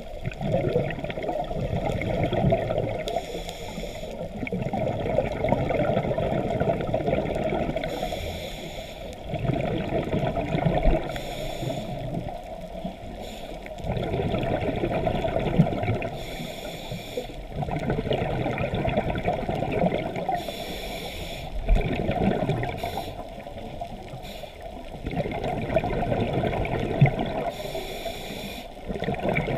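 Scuba diver breathing through a regulator underwater: a short hissing inhale about every four to five seconds, each followed by a longer gurgling rush of exhaled bubbles.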